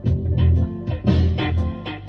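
Electric guitar playing a rock song with a low bass line and a steady beat of about two hits a second, no singing.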